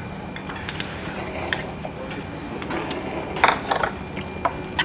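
Metal spoon scraping and clinking against a metal naengmyeon bowl while mixing spicy cold noodles with their sauce. The sound comes as scattered short scrapes, with a louder cluster about three and a half seconds in.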